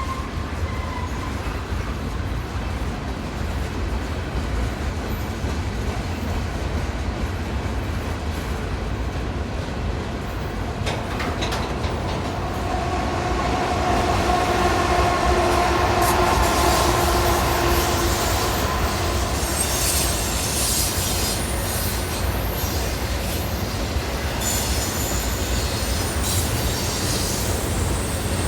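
Freight train rolling past: a steady deep rumble with clicks of wheels over rail joints. A steady ringing tone swells about halfway through, followed by high scratchy wheel squeal near the end.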